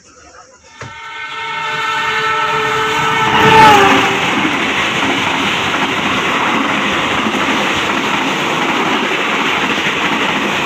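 A passing train's CC 206 diesel-electric locomotive sounds its horn as it approaches, growing louder, and the horn's pitch drops as it passes about three and a half seconds in. Then the steady rush of its passenger carriages going by close alongside.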